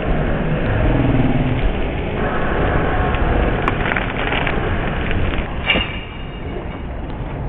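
Busy city street ambience, dominated by the steady running of motor traffic, with a few short sharp sounds around the middle.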